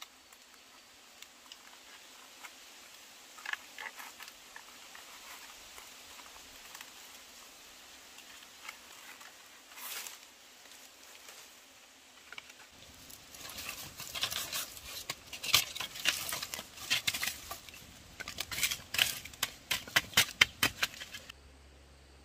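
Campfire crackling and popping in sharp, irregular cracks. They are sparse at first and come thick and loud for the second half, then stop shortly before the end.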